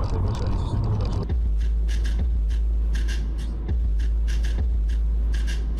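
Low, steady rumble of a car on the move, with faint irregular ticks above it; the sound changes abruptly about a second in.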